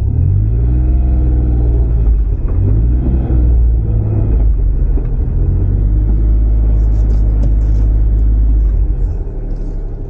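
Low rumbling groan from a Suzuki Kei Works' four-wheel-drive drivetrain during a slow, tight turn, heard inside the cabin. It is the 'gogogo' noise that comes at low speed on sharp turns, which the owner traces to the viscous coupling, a fault common on Suzuki 4WDs.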